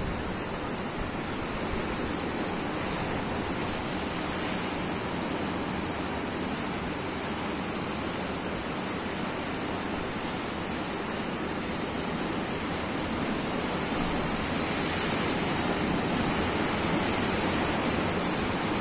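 Sea surf breaking on a rocky shore: a steady, unbroken rush of waves that grows a little louder over the last few seconds.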